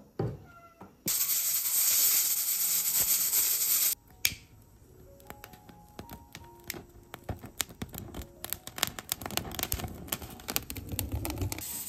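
A loud, steady hiss for about three seconds that cuts off suddenly, then dry pine needles lit with a lighter as kindling, crackling and popping more and more densely as they catch.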